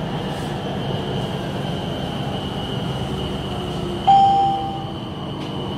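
BTS Skytrain car running on the elevated track: a steady rumble with a thin high whine. About four seconds in, a single in-car chime sounds and fades within a second, the chime that comes before a station announcement.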